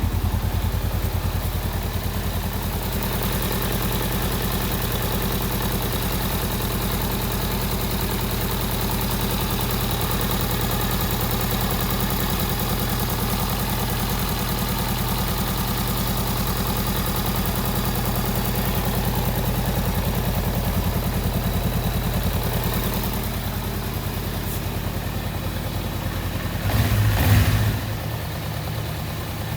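Honda Rebel 500's parallel-twin engine idling steadily, with a brief louder surge near the end.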